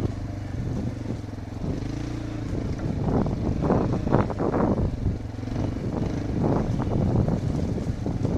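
Off-road enduro motorcycle engine running at fairly low revs, its pitch rising and falling with the throttle, broken by repeated short bursts of noise.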